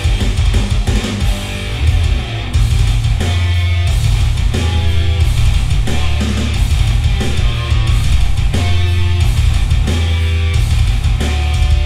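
Heavy rock music with distorted electric guitars and strong bass, played over a Polk Audio 7.2 surround sound system in all-channel stereo and picked up by a microphone in the room.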